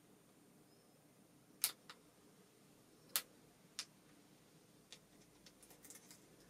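A few sharp, irregular clicks from fingers picking at and peeling the stiff plastic film off a printed tattoo transfer sheet: three clear clicks in the first four seconds, then a few fainter ticks.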